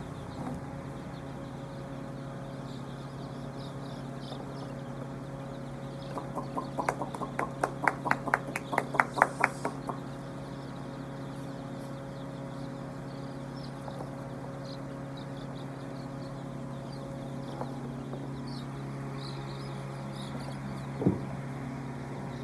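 A shed full of broiler chicks peeping over a steady low hum. About six seconds in, a loud, fast run of short calls comes at about five a second for some four seconds. A single thump sounds near the end.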